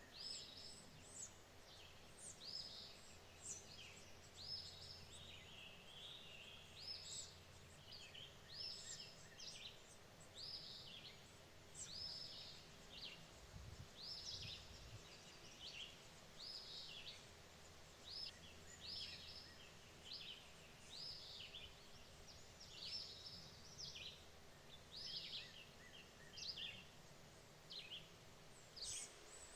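Faint bird calls: short high-pitched notes repeated steadily, one or two a second.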